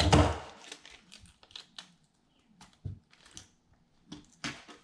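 Packaging tape being handled and pressed onto a wooden joint: a loud rustling rub at the start, then scattered light crinkles and clicks.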